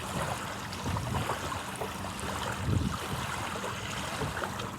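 Ocean surf washing at the shore, a steady rushing, with wind buffeting the microphone in uneven low rumbles.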